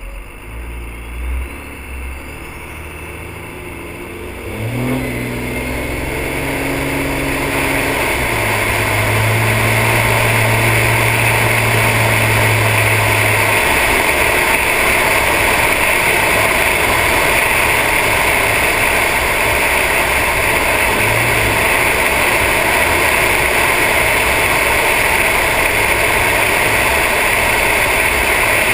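A 1999 Dodge Ram 2500's 5.9-litre 24-valve Cummins turbo diesel pulls harder about five seconds in, its note rising and then holding. From there a steady loud rush of wind and road noise over the microphone builds and covers it for the rest.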